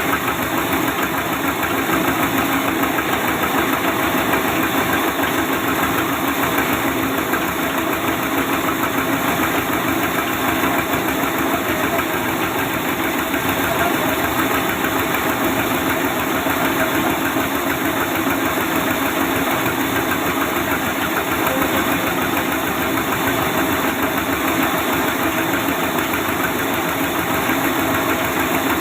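Sawmill saw machine running steadily, with a rapid low pulsing under a dense, even machine noise that does not change.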